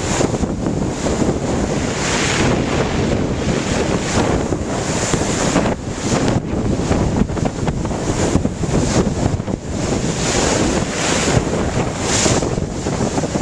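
Gale-force wind buffeting the microphone over waves breaking at high tide, a loud, steady rush that swells and eases with the gusts.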